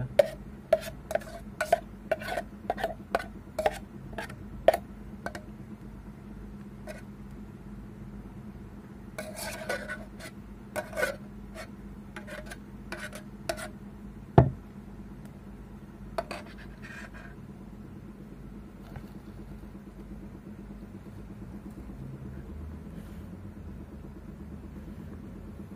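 Spoon scraping and clinking against the inside of a stainless steel pot as sambal is scooped out onto a plate of rice: a quick run of clinks and scrapes, then sparser clusters, with one sharp knock about halfway through.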